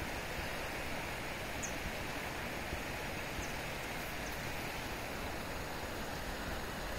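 Steady rushing of a river running high.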